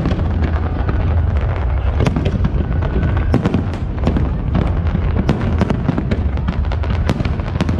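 Fireworks display: many shells bursting in quick succession, a dense run of sharp cracks and bangs over a continuous deep rumble.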